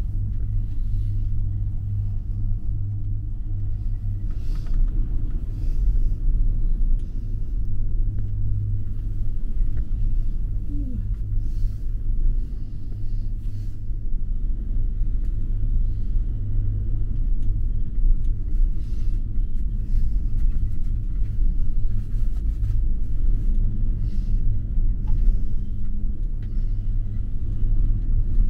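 Steady low rumble inside a Sigma Diamond gondola cabin travelling along the haul rope between towers, with faint clicks now and then.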